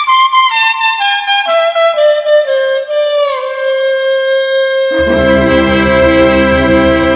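Balkan čoček brass music: a lead horn plays a line that steps down in bending notes and settles on a long held note. About five seconds in, the full band comes in under it on a sustained low chord.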